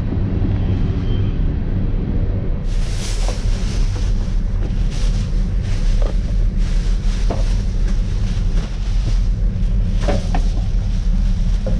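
Thin plastic trash bags rustling and crinkling as they are handled right against the microphone, starting about three seconds in, over a steady low rumble.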